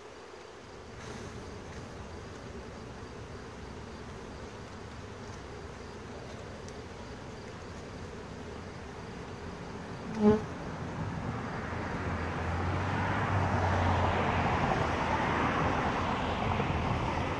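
Honeybees buzzing around an open hive. A single sharp knock comes about ten seconds in. After it a louder rushing rumble swells and fades again near the end.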